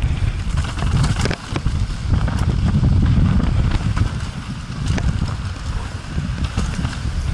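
Wind buffeting a helmet-mounted camera's microphone during a fast downhill mountain bike descent, with the tyres rumbling over dirt and a run of sharp knocks and rattles from the bike over rocks and roots.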